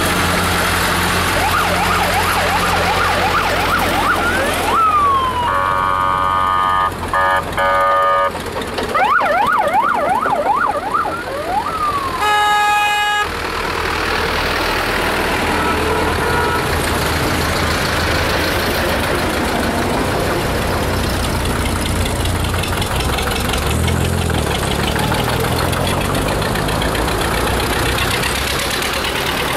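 A siren sounding in quick rising yelp sweeps, broken by several blasts of a horn and ending on a falling wail, over the steady running of tractor engines. After about thirteen seconds only the engines of the slowly passing tractors are heard.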